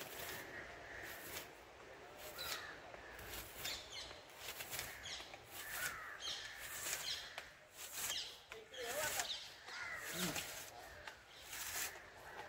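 Birds calling repeatedly, many short calls spread through the whole stretch.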